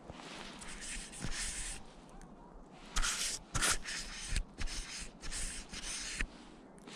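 Snowshoe steps crunching in snow: a quick run of steps from about three seconds in, each a short hissing scrunch, stopping a little after six seconds.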